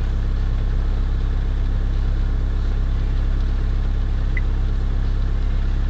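Car engine idling steadily, a low rumble heard from inside the car's cabin.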